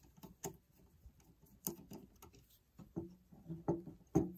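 Irregular small clicks and taps of a screwdriver and a terminal screw on a well pump pressure switch as the screw is backed out and handled, with the sharpest click near the end.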